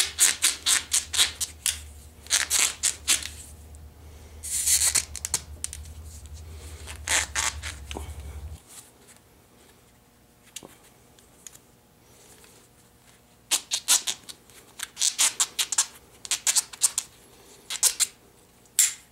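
Foam insulation tubing scraping and squeaking as it is forced over the ends of a large metal carabiner, in quick bursts of rubbing strokes separated by pauses. A faint low hum in the background cuts off a little before halfway.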